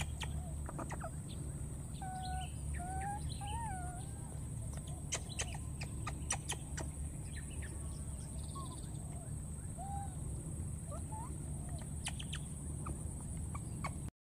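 Baby macaque giving short, thin whimpering coo calls that rise and fall in pitch, most of them in the first four seconds, with a few sharp clicks in the middle and near the end. A steady low rumble and a steady high whine run underneath, and the sound cuts off just before the end.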